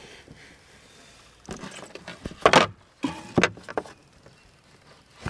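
Handling noises as a bass is let go over the side of a kayak: a short run of splashes and knocks against the hull, starting about a second and a half in, loudest about two and a half seconds in, and over by about three and a half seconds.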